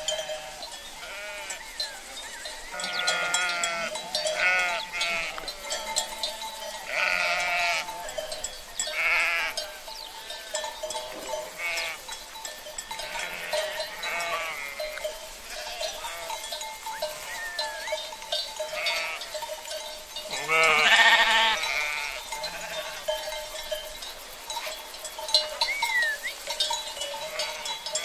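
Sheep bleating again and again, short quavering calls from several animals, the loudest a little over two-thirds of the way through, with a steady tone running underneath.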